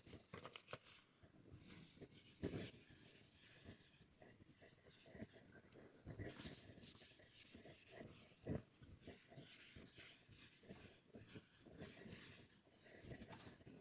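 Faint scratching and tapping of someone writing on a board, in short irregular strokes, with two louder knocks about two and a half and eight and a half seconds in.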